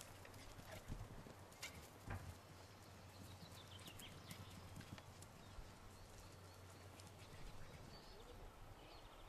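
Faint, scattered thuds of whippet puppies' paws galloping over grass and earth, mostly in the first few seconds. Faint bird chirps come a few seconds in.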